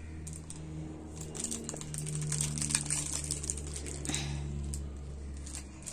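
Wrapper of a bar of soap crinkling in a toddler's hands as she squeezes and picks at it: a long irregular run of small crackles.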